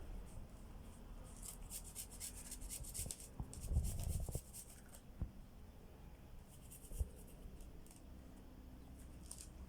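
Garlic cloves being grated on a hand grater: spells of quick, scratchy rasping strokes, with a few soft knocks in between.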